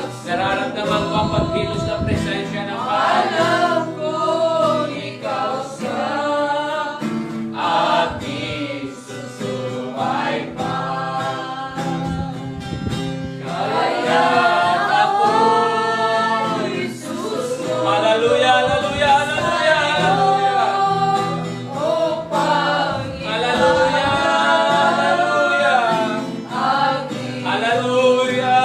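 A man singing, accompanying himself on a strummed acoustic guitar, in phrases of long held notes with short breaks between them.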